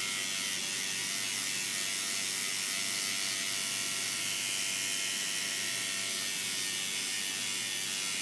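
RejuvaPen electric microneedling pen buzzing steadily as its needle tip is worked over the facial skin.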